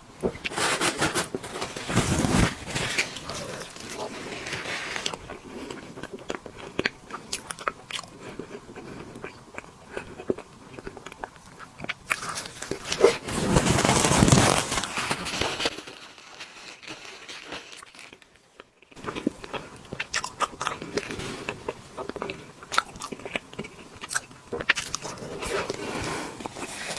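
Close-miked eating: a person biting and chewing soft cake, with many sharp mouth clicks and smacks. The sounds are loudest about halfway through, followed by a brief near-silent break.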